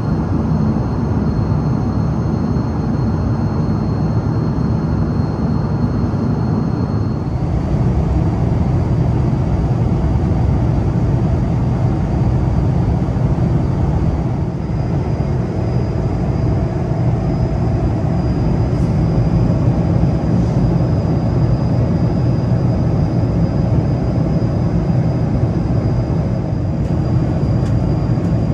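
Steady low-pitched noise of the jet engines and airflow heard inside the cabin of a Boeing 777 airliner. It shifts slightly in tone about seven seconds in.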